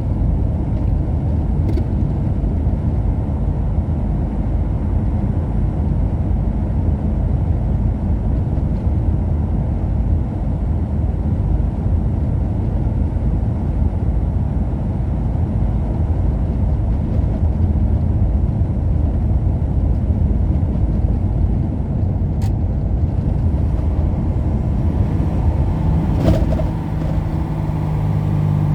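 Steady low rumble of a vehicle driving on the road, engine and tyre noise together. Near the end comes a short knock, and after it a steadier low hum.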